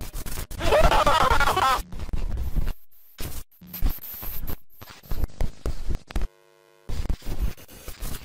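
Glitch-style static sound effect, stuttering and cutting in and out abruptly, with a warped voice-like sound in the first two seconds and a short drop-out near the middle.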